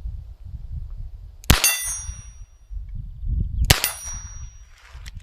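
Two .22 LR shots from an Alfa Proj small-bore revolver about two seconds apart. Each is followed by the ringing of a steel plate target hit at 25 metres.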